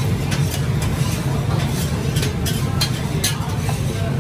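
Steady low rumble of a hawker stall kitchen with frequent short clicks and scrapes of serving utensils: a metal spatula scraping noodles off a plastic plate and a spoon knocking in a plastic tub of chilli sauce.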